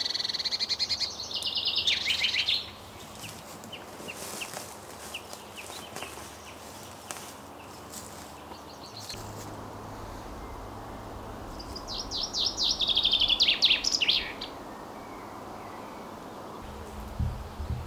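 A small songbird singing twice: each phrase is a fast run of high, repeated notes lasting about two and a half seconds, dropping lower at the end. The first phrase starts right away and the second comes about twelve seconds in. Faint scattered ticks in between, and a low rumble near the end.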